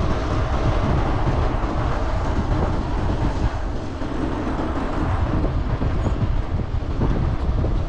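Steady wind rumble on the microphone of a moving bicycle, mixed with the hiss of the tyres rolling on wet asphalt.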